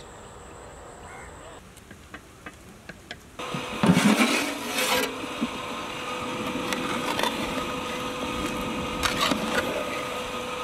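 Hot oil in a large aluminium pot starts sizzling loudly and suddenly about three seconds in, then keeps up a steady bubbling sizzle as raw potato strips deep-fry, with a few clinks of a metal skimmer. Before that, a few soft clicks.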